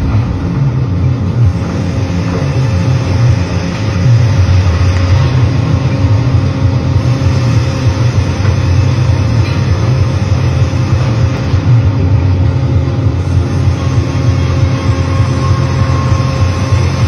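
Band sawmill machinery running: the headrig and its carriage and conveyor drives make a loud, steady low hum with a few fixed tones above it. A higher tone joins about three-quarters of the way through.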